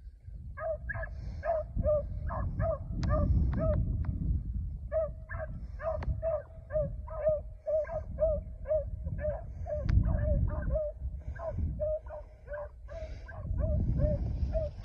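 Beagles baying in quick, repeated calls, about three a second, the sound of the hounds running a rabbit on its trail. A low rumble swells and fades several times underneath.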